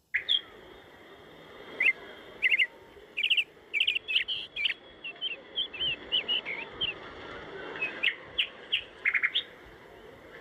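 Birds chirping: a quick series of short, high chirps and brief trills over a steady background hiss, starting abruptly.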